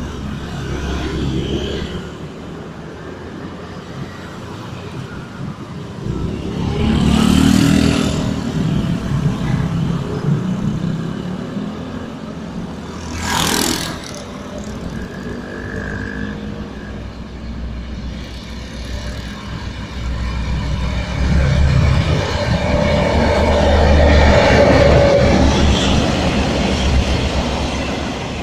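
Short freight train running by, a heavy continuous rumble of locomotive and wagons on the rails that swells and fades, loudest in the last third. A brief sharp noise cuts through about halfway.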